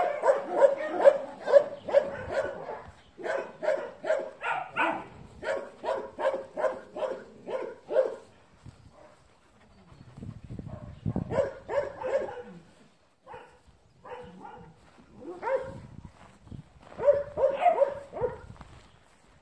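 A dog barking in a quick, regular series of about two to three barks a second, then after a pause a few shorter bouts of barks.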